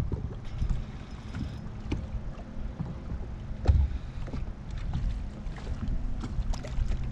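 Gusty wind rumbling on the microphone from a small fishing boat on open, choppy water, with scattered small clicks and knocks and a faint steady low hum. One strong gust comes about halfway through.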